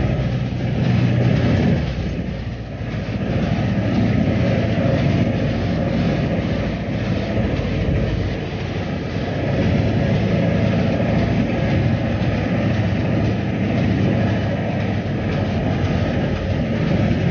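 Steady engine and road rumble of a moving vehicle, with a low hum throughout.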